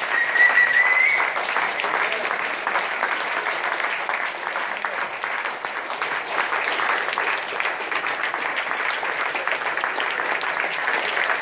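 Audience applauding: a steady crackle of many hands clapping, with a short whistle from the crowd about a second in.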